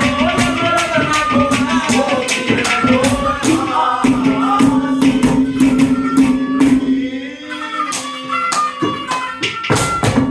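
Haryanvi ragni folk music: a held drone note with a melody over it and quick, even percussion strikes, which drop out briefly about seven seconds in.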